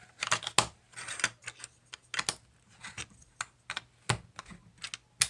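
Plastic Lego bricks clicking and clattering as they are handled and pressed together: a rapid, uneven run of sharp little clicks.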